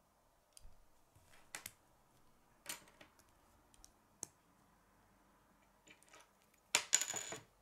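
Plastic K'nex pieces clicking as small black connectors are pushed and snapped onto a blue K'nex connector: scattered faint clicks, then a louder run of clicks near the end.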